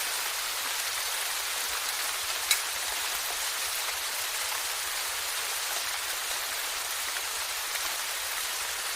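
Steady rain falling, an even hiss, with one sharp louder tick about two and a half seconds in.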